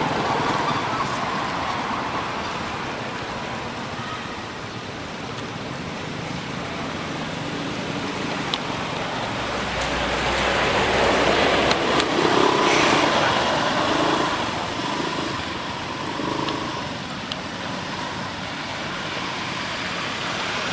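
Steady outdoor background noise like distant traffic, swelling louder for a few seconds about halfway through, with a few faint clicks.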